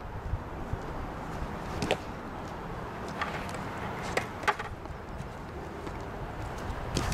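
A few sharp smacks of a softball into a catcher's mitt, the loudest about halfway through, over a steady low rumble of outdoor background noise.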